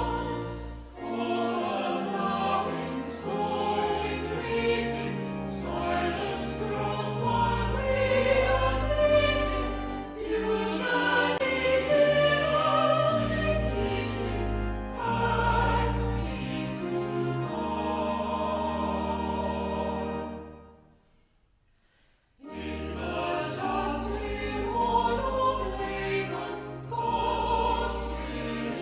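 A choir singing classical-style church music with instrumental accompaniment. It stops for about a second and a half roughly three-quarters of the way through, then starts again.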